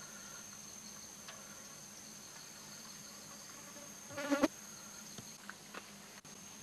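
Faint, steady, high-pitched insect drone. A brief, louder voice sounds about four seconds in.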